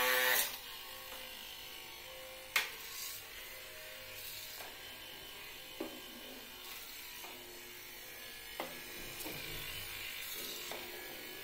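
Small DC hobby motor on a soda-can model boat, whirring steadily as it spins a propeller in the water, with a few sharp clicks along the way. A brief loud pitched sound right at the start.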